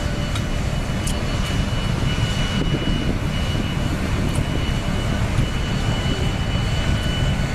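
Steady loud low rumble with a thin high tone held throughout, the background noise on a ship's deck, with a few faint clicks.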